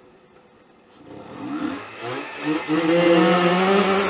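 Mazda RX-8's two-rotor Wankel rotary engine, heard from inside the cabin, comes in about a second in and accelerates hard: its pitch climbs in two short surges, then in a long steady rise.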